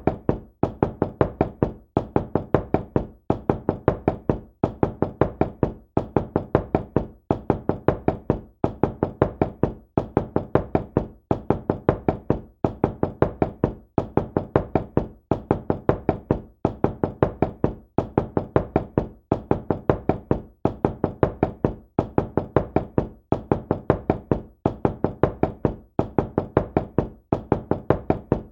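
Knocking on a door: quick knocks in small groups, repeated over and over with short pauses between the groups.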